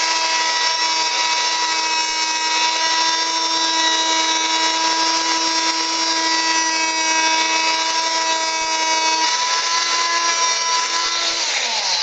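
Oscillating multi-tool running with a steady high whine as its vibrating blade cuts a slot into a PVC pipe coupling. The pitch shifts slightly about nine seconds in, and the tool begins to wind down at the very end.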